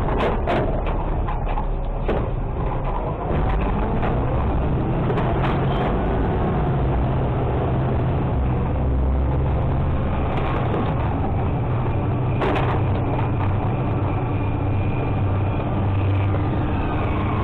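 Garbage truck engine running steadily while the Labrie automated side loader's packer cycles, pushing trash from the hopper into the body, with scattered knocks and clanks. One sharper knock comes about two-thirds of the way through.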